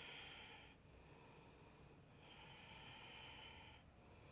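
Faint breathing: a short breath right at the start, then a longer one of about a second and a half, roughly two seconds in.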